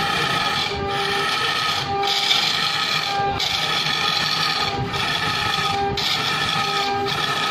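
Wood lathe spinning a large log while a gouge cuts into it: a steady scraping hiss with a ringing tone, broken by short breaks about once a second.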